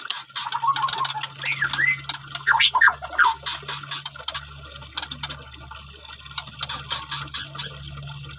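White-rumped shama singing: a few whistled glides in the first three seconds, then rapid sharp clicking and chattering notes. A steady low hum runs underneath.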